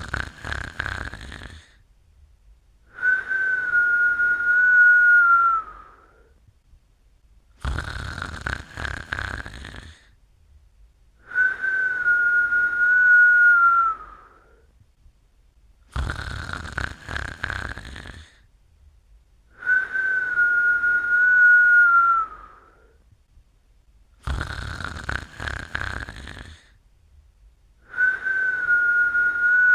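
Snoring in a regular cycle about every eight seconds: a rattling snore of about two seconds, then a long whistled breath on one steady high note that sags slightly at its end. Four snores and four whistles; the last whistle is cut off at the end.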